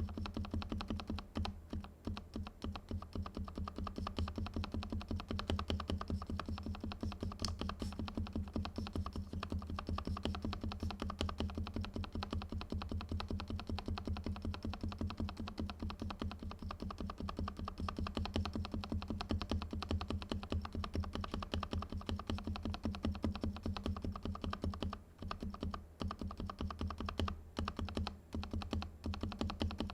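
Fast, continuous typing on a Varmilo VA87 tenkeyless mechanical keyboard with silent red linear switches and tuned, lubricated stabilizers: many keystrokes a second, with a couple of short pauses near the end.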